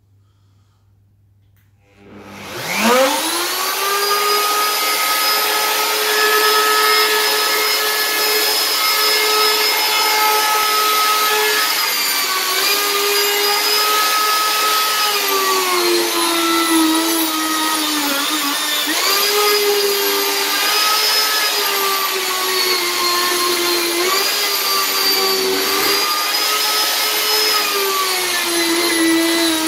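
Ryobi handheld router starting up about two seconds in with a rising whine, then running steadily as it is pushed in a router sled to flatten an end grain butcher block. Its pitch sags briefly several times as the bit takes heavier cuts.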